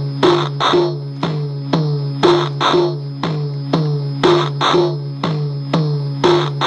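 Circuit-bent Korg DDD-1 drum machine, its digital signals patched through a homemade logic effect, playing a glitchy looping pattern: about two hits a second, each with a short falling pitched tail, over a steady low drone, the pattern repeating every two seconds.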